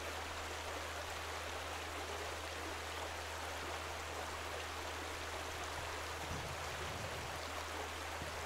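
Quiet, steady rushing background noise with a low hum beneath it, unchanging throughout.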